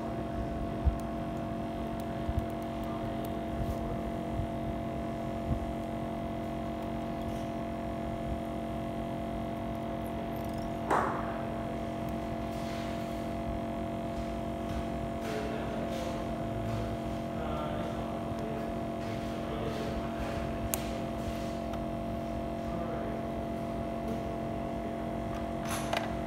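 Steady electrical hum of running repair-bench equipment, with several fixed tones, and scattered small clicks and taps of tools on a phone screen, plus a brief falling squeak about eleven seconds in.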